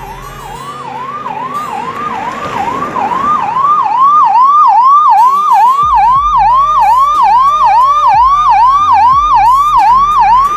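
Ambulance electronic siren sounding its second tone, a fast wail that sweeps down and back up about twice a second, growing louder over the first few seconds and then holding steady. This tone warns that the ambulance has come very near and traffic should give way.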